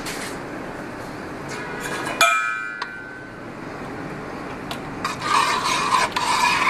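A metal utensil clinks once against a steel cooking pot about two seconds in, ringing briefly. Near the end comes a run of scraping as the syrup in the pot is stirred.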